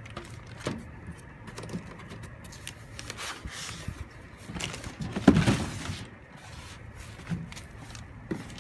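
Foam packing and a cardboard box being handled: scattered rustles, scrapes and knocks, with one louder thump about five seconds in.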